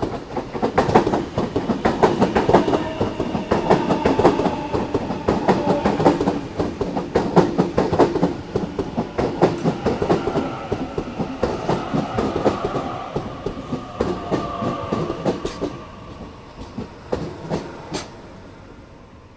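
Sydney Trains Waratah (A-set) double-deck electric train passing close by over the points, its wheels clacking over rail joints and crossings. A steady whine drops slowly in pitch as it slows towards the platform, and the sound fades over the last few seconds as the rear cars pass.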